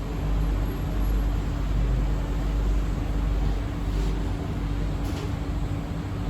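Inside a C151B metro train car in motion: a steady low rumble of running noise with a constant hum under it.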